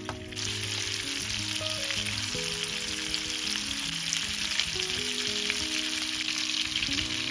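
Raw chicken drumsticks frying in hot oil in a nonstick pan: a steady, crackling sizzle that comes up suddenly just after the start. Soft background music plays underneath.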